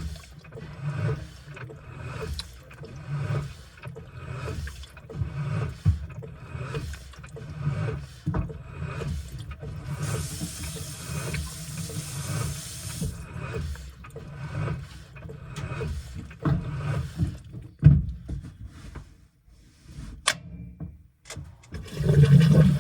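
Washing machine running a wash, with water and laundry sloshing in repeated surges as the tub turns. About ten seconds in there are a few seconds of steady hissing. Near the end the sloshing stops briefly and there are a few clicks.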